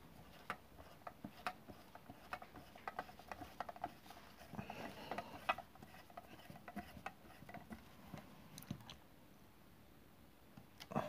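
Light, irregular metallic clicks and taps of a T-handle driver turning the stator's mounting bolt in a motorcycle stator cover, dying away about nine seconds in.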